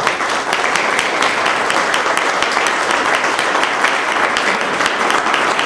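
A roomful of audience applauding steadily, many hands clapping at once, after a speech ends.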